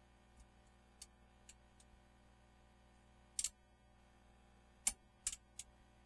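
Scattered sharp clicks and clinks at irregular intervals. A few are faint in the first couple of seconds, and louder ones come in the second half: a quick double click, then three more close together near the end.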